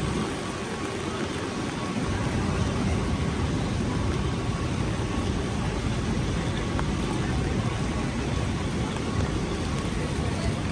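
Steady rain falling on a city street, with a low rumble of traffic underneath.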